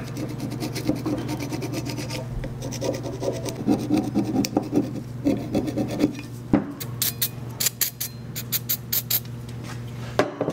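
Screwdriver blade scraping caked brake dust and debris off a brake caliper bracket in quick, irregular strokes, with sharp metal-on-metal clicks in the second half.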